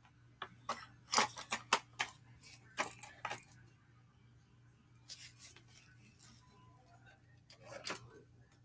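Small objects being handled and set down: a quick run of clicks and rattles in the first few seconds, then a few more around the middle and near the end.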